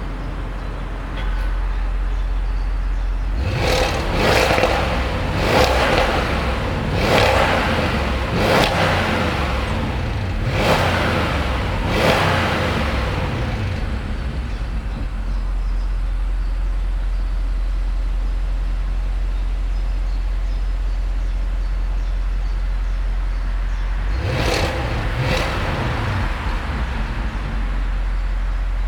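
Audi S8 Plus twin-turbo V8 on its stock exhaust, idling with a low rumble and revved in a run of six or seven quick throttle blips, then settling back to idle before two more short blips near the end.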